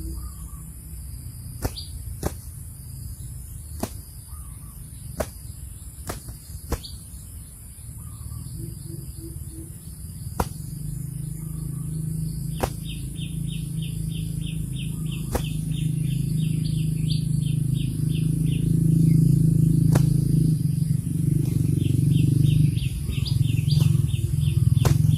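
Birds chirping outdoors in quick runs of short high notes, with sharp clicks every second or so and a low hum that grows steadily louder through the middle.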